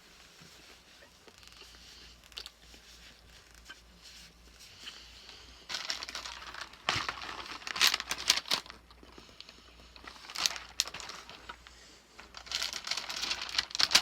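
Plastic candy packaging crinkling and rustling in bursts as a chocolate praline is taken out of its box; quiet for the first few seconds, then several bouts of crinkling in the second half.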